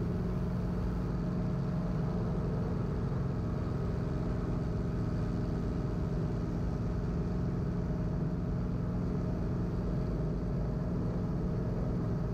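Guimbal Cabri G2 helicopter's four-cylinder Lycoming piston engine and rotors running steadily while hover-taxiing, heard from inside the cabin as an even drone with a low hum.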